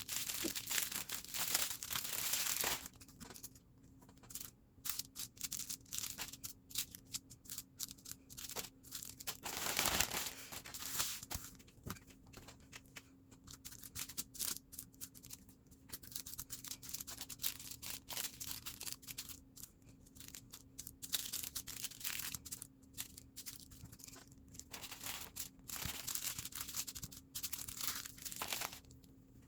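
Small plastic bags of diamond-painting drills rustling and crinkling as they are handled and sorted, with irregular bursts of crackle and small clicks.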